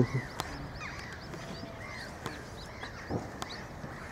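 Duckling peeping: an irregular string of short, thin, high chirps, each rising and falling in pitch.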